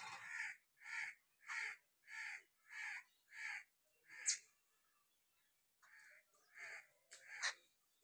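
A bird calling over and over, short harsh calls about every half second, with a sharper call about four seconds in and a pause of about a second before the calls start again.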